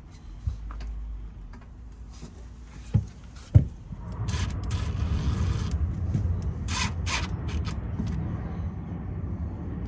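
Sharp knocks and clicks of hand work on equipment, then a low rumble with two short spells of a high-pitched whine.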